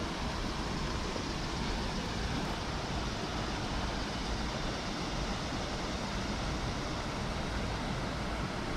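Steady outdoor background noise: an even hiss-like rumble with no distinct events.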